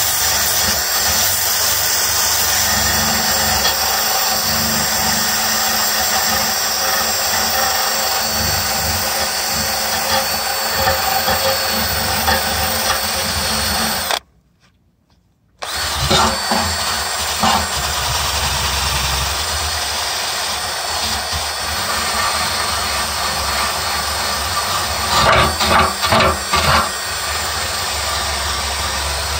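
Drill spinning a wire brush against a steel truck frame, scrubbing off rust with a steady, harsh grinding. It stops for about a second and a half around the middle, then starts again, with a few louder scrapes near the end.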